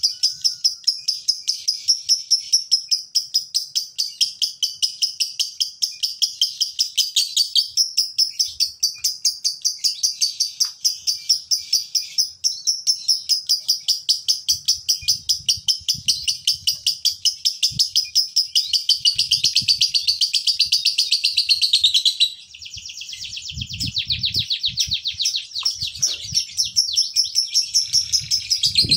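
Male Fischer's lovebird giving its long ngekek song: an unbroken run of rapid, shrill chattering notes, several a second, broken once briefly about twenty-two seconds in before it starts again.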